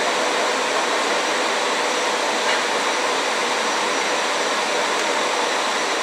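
KiHa 40 diesel railcar standing with its engine idling, heard inside the car as a steady hum and hiss.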